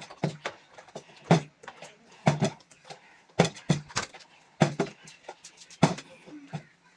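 Plastic Gatorade bottle, part-filled with water, flipped and landing on a wooden table again and again: short thuds and knocks about once a second, some in quick pairs as it bounces.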